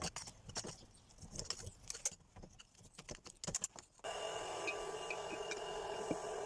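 Light metallic clinking and rattling of small metal parts being handled, in scattered taps. About four seconds in, a steady hum with a few held high tones sets in suddenly.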